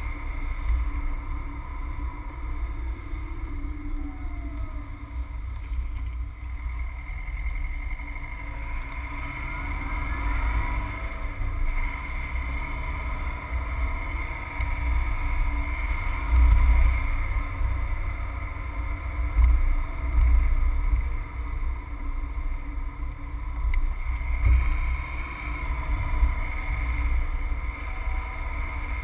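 Subaru Forester driving along a town street, heard from inside the cabin: a steady low rumble of engine and tyres with a faint hum above it. The rumble swells a few times in the second half.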